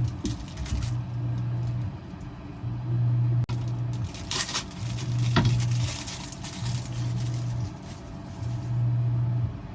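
A low hum that switches on and off in a steady cycle, about one second on and half a second off, with a few clinks and a stretch of hiss in the middle.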